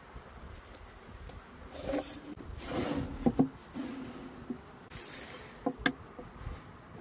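Wood being worked by hand: scraping strokes, then two sharp knocks in quick succession near the middle and two more near the end.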